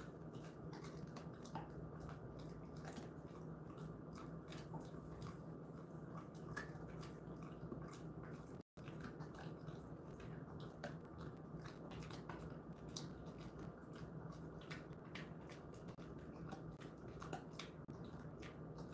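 A Jindo-mix dog gnawing and chewing a dried elephant-fish (chimaera) tail treat: faint, irregular crunching clicks over a steady low hum.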